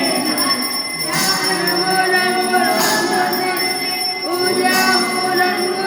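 Young students' voices chanting a Sanskrit hymn during aarti, with bells ringing steadily and a sharper bell strike about every two seconds, three times.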